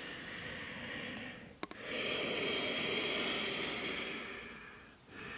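A woman breathing slowly and deeply while holding a yoga stretch: long, soft breaths that swell and fade over a few seconds each, with a small click about one and a half seconds in.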